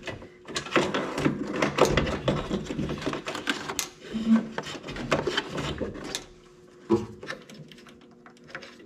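Rapid clicking and rustling of wires and plastic parts being handled and pushed through a small hole in the engine bay. One sharp click about seven seconds in, then only a faint steady hum.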